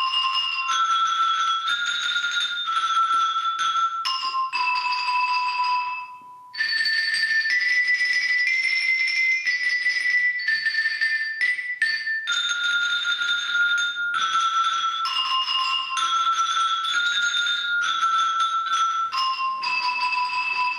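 Binchotan charcoal xylophone, bars of hard Kishu binchotan charcoal struck with mallets, playing a slow melody of single ringing notes, some held for a second or two.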